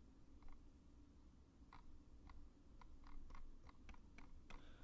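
Faint, irregular clicking of a computer mouse and keyboard, about a dozen sharp clicks spread through, over quiet room tone.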